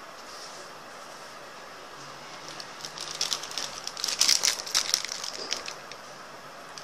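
Plastic wrapping on a packaged block of modelling clay crinkling and crackling as it is handled. The crackles start a couple of seconds in, are loudest in the middle and fade out near the end.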